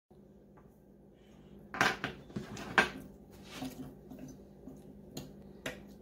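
Metal fork clinking and scraping against the cooking pot of a slow cooker as oxtails are pulled off the bone: a cluster of sharp clinks about two seconds in and two more near the end, over a faint steady low hum.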